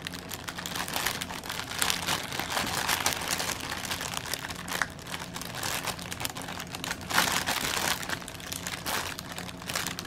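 Thin clear plastic bags crinkling and rustling in irregular bursts as hands rummage through a large bag of small zip-lock packets of diamond painting drills.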